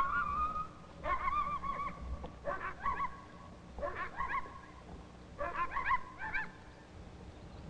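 Animal calls in five short bouts, each a cluster of high, wavering, pitched cries, repeating about every second or so.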